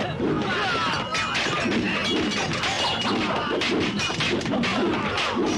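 Martial-arts fight sound effects: a rapid series of punch and kick impacts and crashes, over music.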